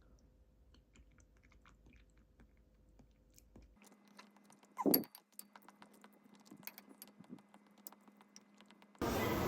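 Quiet eating sounds: soft chewing and small clicks of cutlery or dishes, with one brief louder sound about five seconds in. In the last half-second a loud, steady noise cuts in suddenly.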